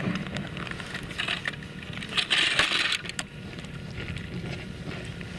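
Boots crunching and scuffing on bare lake ice, with many sharp clicks and a louder crisp scrape about two seconds in.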